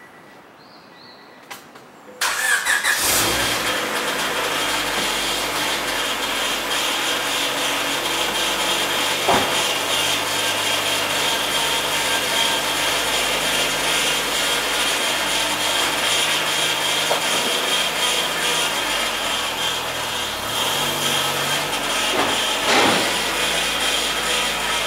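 Honda Civic Type R EK9's four-cylinder engine started about two seconds in, then running steadily with a steady high tone from the engine bay and a short knock twice. The tone is the abnormal noise that appears once the engine is running, which the owner finds worst when the steering is turned.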